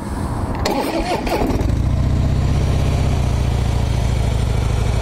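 2013 Harley-Davidson Breakout's counterbalanced Twin Cam 103 V-twin being started. After about a second and a half of cranking it catches and settles into a steady, even idle through its factory exhaust, which runs fairly quiet.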